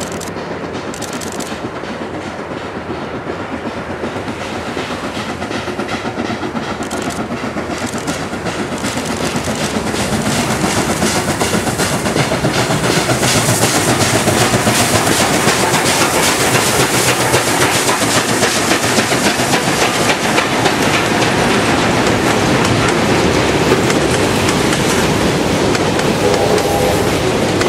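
A JS-class 2-8-2 steam locomotive hauling a long freight train approaches and passes, its exhaust growing louder until it goes by about halfway through. The loaded open wagons then roll past with a steady clickety-clack of wheels over the rail joints.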